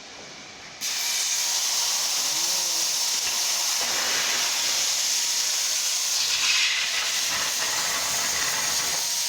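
Cutting torch on a CNC cutting table: a fainter hiss, then a sudden jump to a loud steady hiss a little under a second in as the cut gets going.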